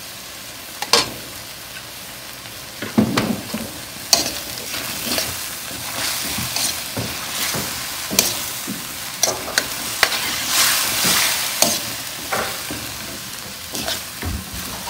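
Beef and onions stir-frying in a steel wok with oyster and soy sauce: a steady sizzle, with a metal spoon scraping and clanking against the pan as the meat is stirred. The spoon strokes come only now and then at first, then thick and fast from about three seconds in.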